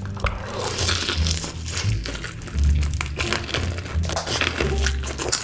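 Crispy fried chicken being bitten and torn from the bone, with crackly crunching and chewing, over background music with a bass line.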